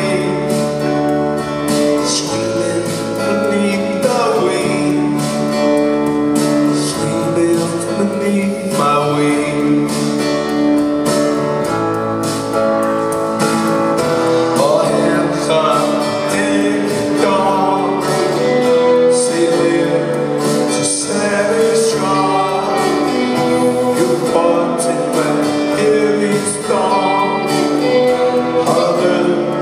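Live rock band playing, with a male lead vocal over electric guitars, bass and keyboards.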